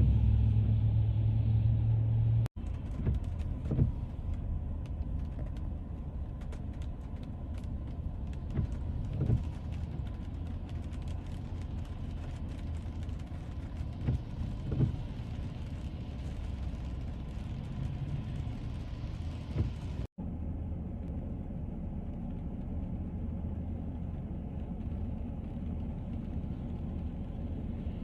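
Low, steady rumble of a car driving on a rain-soaked road, engine and tyre noise, with scattered light ticks. The sound drops out for an instant twice.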